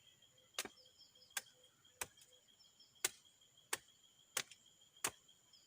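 Hammer blows, likely a carpenter nailing timber: seven sharp knocks at a fairly even pace of about one every two-thirds of a second, each with a short ring, over a faint steady high whine.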